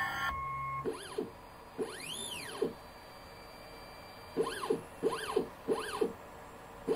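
Stepper motors of a CNC laser engraver with a rotary axis whining through about six quick moves. Each move is a rising-then-falling pitch glide with a click at its start and end, and one longer glide comes about two seconds in. A steady hum cuts off just after the start.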